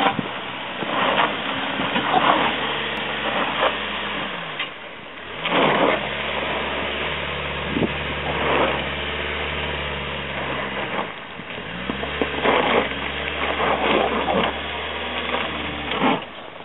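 Suzuki Grand Vitara engine running at low revs as the SUV crawls up a steep, rocky dirt slope in four-wheel drive. The revs drop and pick up again twice, about five seconds in and past the middle, under loud noisy bursts.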